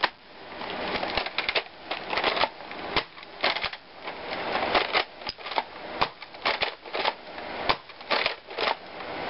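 A Buzzbee Rapid Fire toy dart rifle being cocked and fired over and over: a run of irregular plastic clicks and clacks from its mechanism and shell darts.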